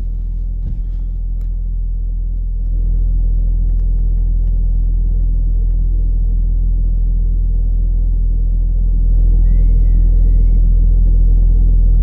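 A steady low motor rumble with a constant hum. It grows louder about three seconds in and again about nine seconds in.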